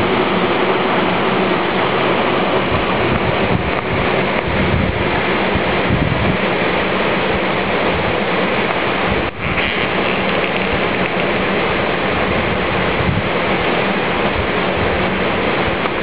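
Steady rushing of a tall waterfall pouring down a rock face into a pool, with one brief dip about nine seconds in.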